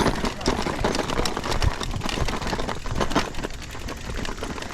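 A mountain bike rolling over rough trail, giving a rapid, irregular clicking and rattling.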